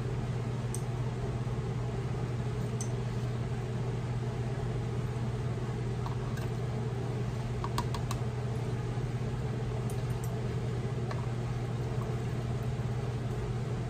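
Steady low machine hum, even in level throughout, with a few faint light clicks and clinks here and there.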